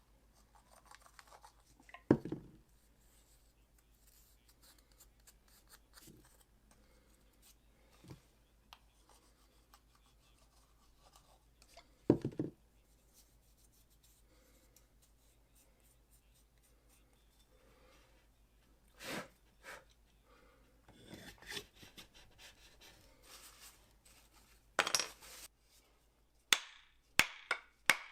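Hand work on a wooden axe handle: faint scraping and rubbing broken by a few separate sharp knocks, then a quick run of sharp taps near the end.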